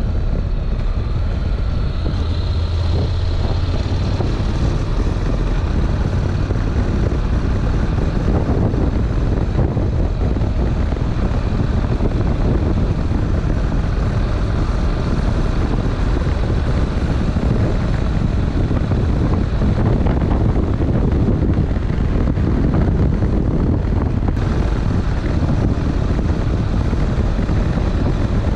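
Honda NC700X's parallel-twin engine running steadily on the move, mixed with heavy wind rumble on a bare, unshielded action-camera microphone.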